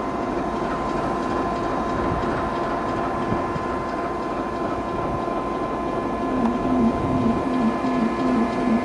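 DR1A diesel multiple unit running steadily, its diesel engine and drive giving an even mechanical drone with a steady whine. About six seconds in, a quick, evenly repeating clatter joins it.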